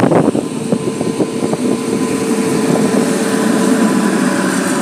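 Indian Railways WAP-7 electric locomotive approaching and passing over a level crossing. A cluster of sharp wheel clicks on the rails comes in the first second and a half, then a steady rumble with a constant whine.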